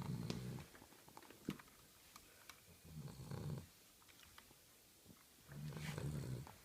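Cavalier King Charles spaniel snoring in its sleep: three low snores, each under a second long, about three seconds apart.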